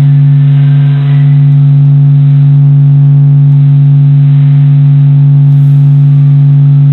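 Sonified solar vibrations: oscillations of the Sun's surface recorded by NASA scientists and converted to audio, heard as a deep, constant hum with one strong low tone and fainter overtones above it.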